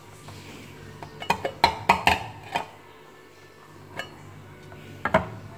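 Kitchen knife blade striking and scraping on the metal lid of a tin can on a wooden cutting board. A quick run of sharp metallic clinks comes a little over a second in, then single knocks about four seconds in and again near the end.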